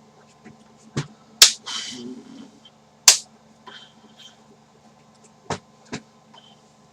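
A handful of sharp clicks and knocks, about five, spread irregularly, with a short rustle after the second.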